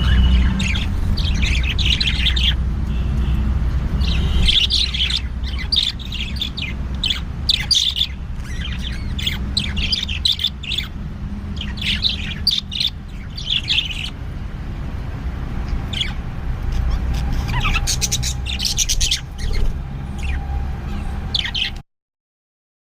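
Pet lovebirds chirping and squawking in repeated bursts of sharp, high calls over a steady low hum; the sound stops suddenly near the end.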